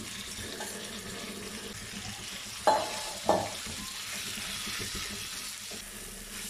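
Gochujang- and soy-marinated chicken breast slices sizzling steadily in hot oil in a stainless steel pan. Near the middle, two sharp knocks against the pan, a little over half a second apart.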